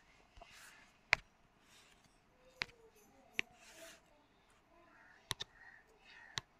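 Faint, sharp taps on a touchscreen as a pen tool is selected and used to write, about six scattered taps, two in quick succession a little after the five-second mark, with soft rubbing between them.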